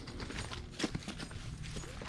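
Footsteps crunching and rustling on dry leaf litter, a few uneven steps with one sharper crunch just under a second in.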